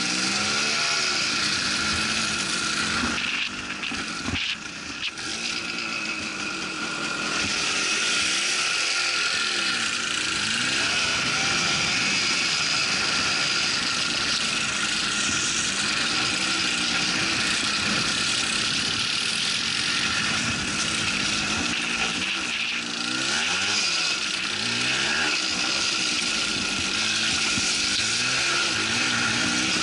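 Quad bike engine running while riding over rough gravel, its revs rising and falling again and again, with a brief drop in level about four seconds in.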